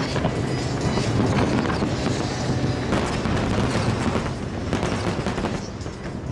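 Fireworks bursting in rapid succession: a dense, continuous barrage of bangs and crackles, thinning slightly near the end.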